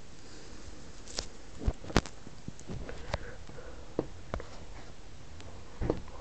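Handling noise: scattered light taps and clicks, about seven in all, over a steady hiss.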